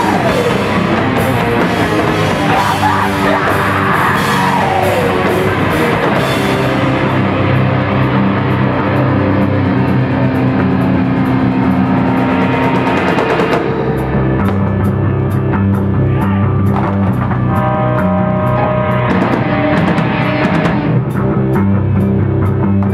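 A crust punk band playing live and loud: heavily distorted guitar and bass over a drum kit, with no vocals. Cymbals crash through the first several seconds, drop out for a stretch, then a steady cymbal beat returns about halfway through.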